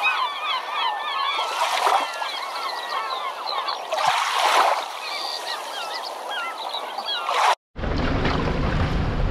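A flock of birds calling over one another, many short rising and falling calls overlapping, with no low end. It cuts off abruptly after about seven and a half seconds, and the wind rumbling on the microphone and small waves washing over a shallow shoreline take its place.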